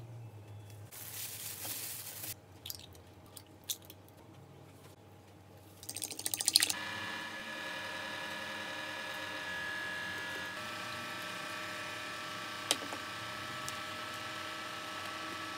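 A metal spoon stirs seasoning into a bowl of raw vegetables. Then, from about six seconds in after a short crackling burst, egg fries in oil in a pan with a steady sizzle and a constant hum under it.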